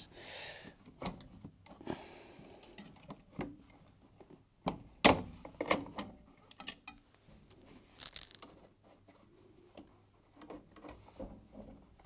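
Plastic housing of a fridge freezer condenser fan being handled and pushed into its clips in the base: scattered knocks and plastic clicks, the sharpest about five seconds in, with short scraping rustles near the start and about eight seconds in.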